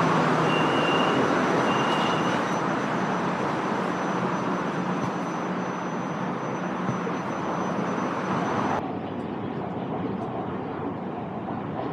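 Electric passenger train running, a steady rumble and hiss with a faint high whine. The high hiss drops out sharply about nine seconds in and the sound slowly grows quieter.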